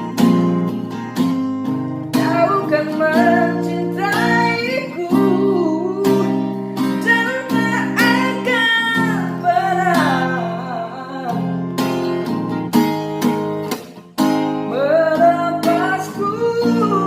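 A solo voice singing over a strummed acoustic guitar, the voice dry with no added effects. The voice drops out for a few seconds past the middle, leaving the guitar alone, then comes back near the end.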